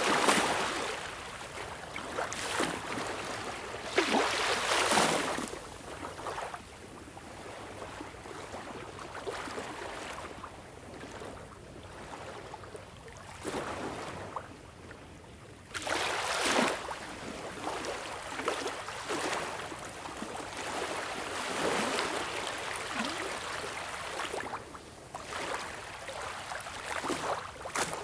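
Sea surf breaking in repeated swells, each wave rising to a burst of rushing noise a few seconds apart with a hissing wash between them.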